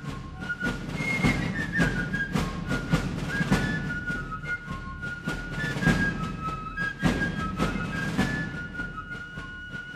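Background music: a high melody of short held notes over a drum beat.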